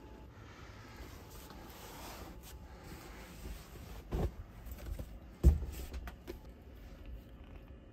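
Bedding rustling, then two dull thumps about a second apart, the second louder, as a hand presses and pats the capsule bed's mattress and pillow, followed by a couple of small clicks.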